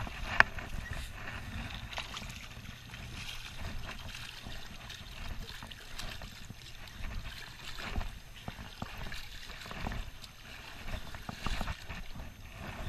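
Shallow river water sloshing and splashing around wading legs as a hooked fish thrashes at the surface, with a sharp knock just after the start.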